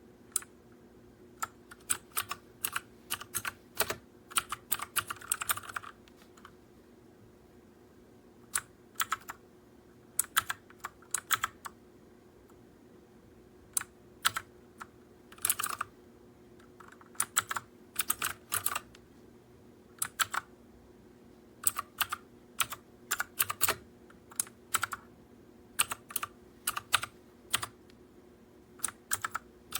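Typing on a MageGee mechanical keyboard with blue switches: sharp, clicky keystrokes in irregular bursts separated by short pauses.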